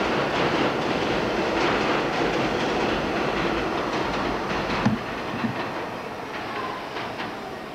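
New York City subway train running past, a steady rumble that fades as it goes. There are two sharp knocks about five seconds in.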